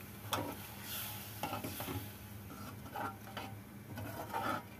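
Steel spoon stirring a thin tomato-onion curry masala in a metal kadhai, scraping and clicking against the pan a few times, over a faint sizzle.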